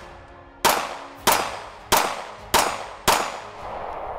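Radom Vis 9mm single-action pistol fired five times in a steady string, a little over half a second between shots. Each shot is followed by a short ringing tail as the bullets strike a steel plate target.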